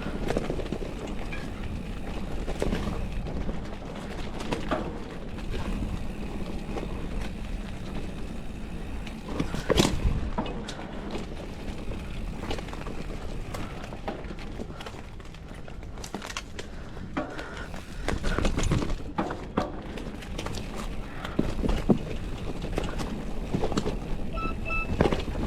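Mountain bike riding down a dirt forest trail: a steady rushing noise with frequent knocks and clicks as the bike rattles over bumps, one of the loudest knocks about ten seconds in.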